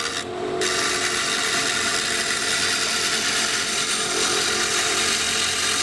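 Wood lathe running with a hand-held chisel cutting into the end of a spinning stave drum shell: a steady scraping hiss over the lathe's hum, with a brief lift of the tool about half a second in.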